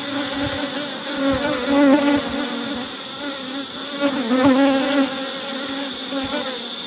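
A honey bee colony buzzing around an opened hive: a dense, steady hum that wavers slightly in pitch. A few light knocks come from the inner cover being handled on the box.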